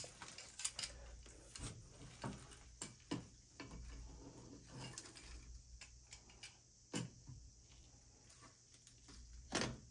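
Scattered light clicks and knocks of pliers working on the valve fitting of a copper water line, with two sharper knocks, one about seven seconds in and one near the end.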